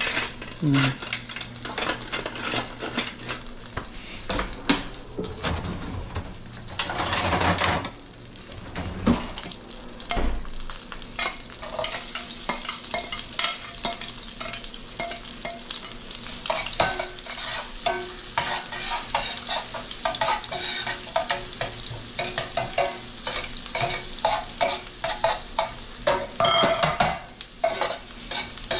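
Sliced garlic frying in hot olive oil and butter in a stainless steel pot, a steady crackling sizzle with a louder burst about seven seconds in. Metal tongs click and scrape against the pot as the garlic is stirred.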